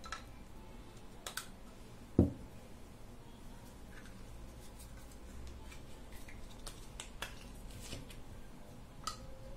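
Small hard plastic clicks and taps as action-camera batteries, their snap-shut plastic cases and a battery charging hub are handled, with one louder, deeper knock about two seconds in.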